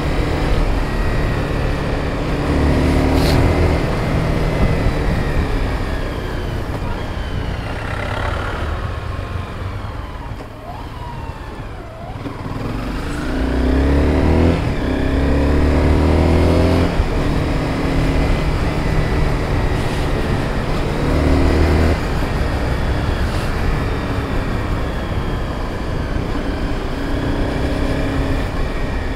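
Sport motorcycle engine running under way with wind rush, the engine note rising and falling as the throttle opens and closes; it eases off about ten seconds in, then pulls harder again.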